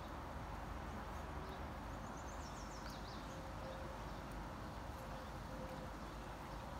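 Steady outdoor background noise with a low rumble, and a brief run of faint, high bird chirps a little over two seconds in.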